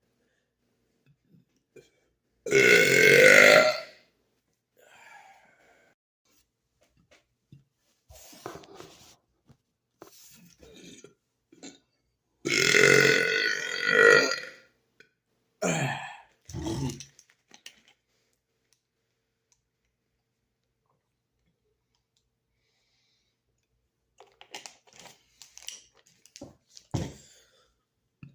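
A man belching loudly on purpose: a long burp about two and a half seconds in and another long one around halfway, followed by two short burps. Fainter small noises come between them and near the end.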